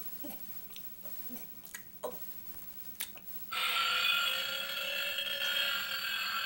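A boy's long, croaky forced burp that starts suddenly about halfway through and holds steady for about three seconds. It comes after a few seconds of faint clicks while he gets ready.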